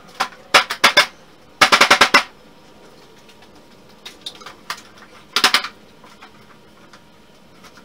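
Thin plywood boat-frame pieces knocking and clattering as they are handled, in short clusters of sharp knocks: a quick run of about six near two seconds in and another bunch about five and a half seconds in.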